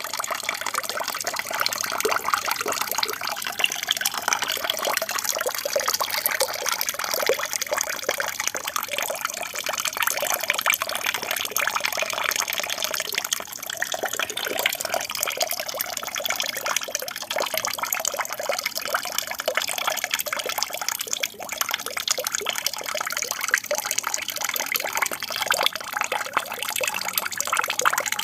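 Aquarium waterfall: water falling and splashing steadily.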